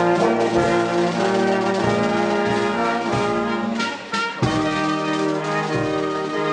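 A marching brass band playing a tune: tubas and saxophones holding chords over a bass drum, with a couple of sharp drum and cymbal strikes about four seconds in.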